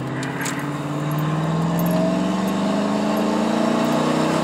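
Chevrolet Silverado's 4.8 L V8 at wide-open throttle from a standing start, heard from inside the cab, its pitch rising steadily as the revs climb. The truck is on the stock tune with torque management on, so it pulls slowly off the line.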